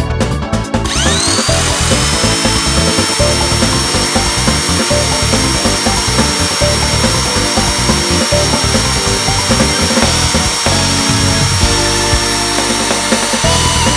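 Background music over an electric motor that starts about a second in, its whine rising quickly to a steady high pitch and holding there.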